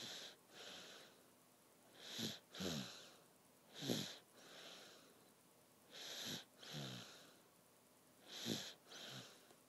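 Sleeper snoring, each breath giving a pair of short snores about half a second apart, repeating roughly every two seconds.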